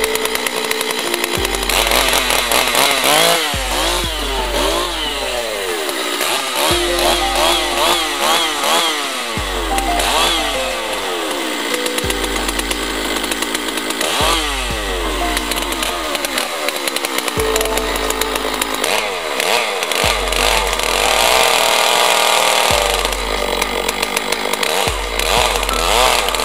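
Petrol two-stroke chainsaw cutting into a block of wood, its engine revving up and down as the chain bites into the cut and lifts out again.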